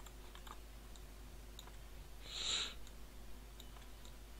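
Faint computer mouse clicks, a few scattered ones over quiet room tone. A short hiss of about half a second comes a little past halfway and is the loudest sound.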